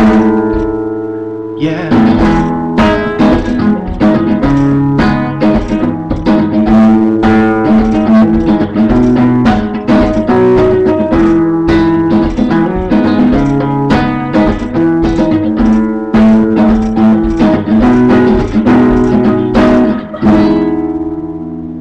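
Acoustic guitar playing an instrumental passage with quick, rhythmic strummed and picked chords. A chord rings out at the start, and a final chord is left ringing near the end.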